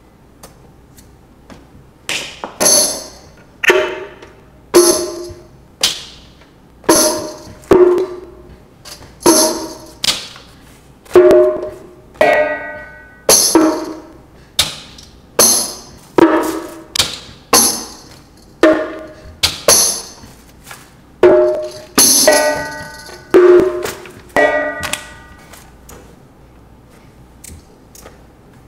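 Tambourines struck in a steady pulse of about one hit a second, each hit jingling and dying away quickly; a few hits carry a ringing pitched tone. Near the end the hits stop, leaving a few faint taps.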